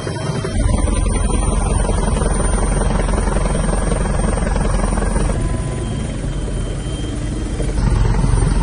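Helicopter's rotor and engine running steadily and loud, with abrupt shifts in level: a jump about half a second in, a slight drop around the middle, and louder again near the end.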